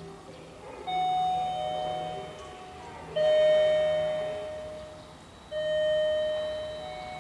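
Station approach chime on the platform PA: three bell-like tones, each struck suddenly and fading out, the second one loudest.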